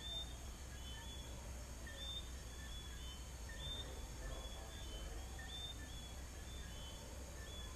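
A chorus of sapitos, Caracas's small whistling frogs, giving short high whistled notes, several frogs overlapping at a few notes a second. Under them runs a steady high trill of crickets and a low distant rumble.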